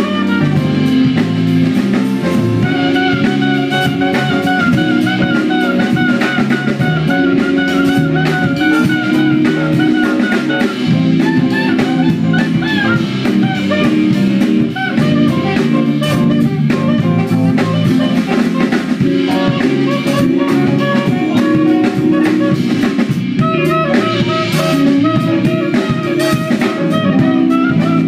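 A small band playing a jazz-style tune live: drum kit, electric guitar and a walking bass line, with a reed instrument carrying a held, wavering melody that comes in soon after the start and again near the end.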